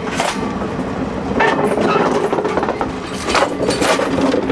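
Freight train of old boxcars rolling past close by: a steady rumble of steel wheels on rail, with irregular clanks and knocks from the wheels and couplings.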